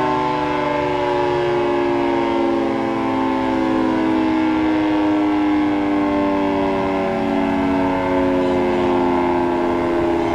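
3T22 tornado siren sounding a chord of several tones at once, its pitch sliding slowly downward at a steady loudness.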